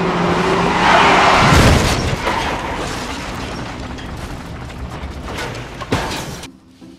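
Film sound effect of a loud blast: a swelling boom that peaks about a second and a half in, then rumbles away with crackling and clattering debris, and cuts off abruptly near the end.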